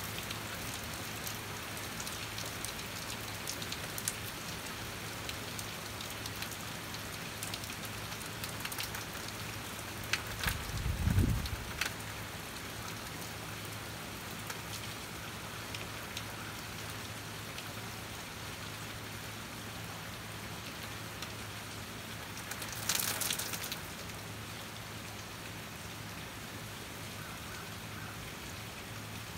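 Steady rain falling: an even hiss with scattered drip ticks. A short low thump about eleven seconds in is the loudest moment, and a brief brighter hiss comes about twenty-three seconds in.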